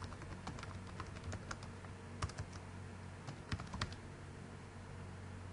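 Computer keyboard keys clicking in an irregular run of keystrokes as a line of text is typed, stopping about four seconds in. A steady low hum runs underneath.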